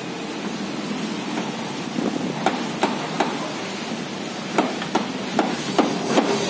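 Series of sharp hammer taps, three about halfway through and five more near the end at about two to three a second, over a steady background hiss.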